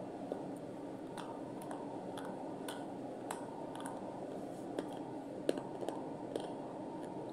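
Close-miked chewing of natural slate pencil: about ten sharp, scattered crunches over a steady background hiss.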